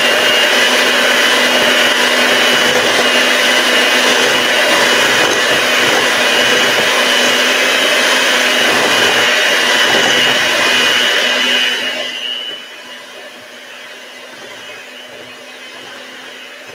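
Electric hand mixer running steadily, beaters whirring through cake batter in a bowl with a motor whine and hum. About twelve seconds in it drops to a much quieter run.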